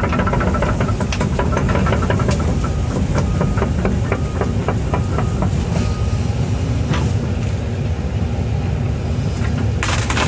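Excavator's diesel engine running steadily while the machine works, with a quick series of clicks and knocks over the first several seconds. Just before the end a dense crackling starts: wood splintering.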